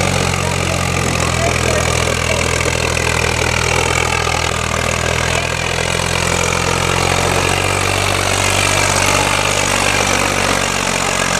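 Swaraj tractor's diesel engine running steadily at an even pitch under heavy load as it pulls a loaded trolley.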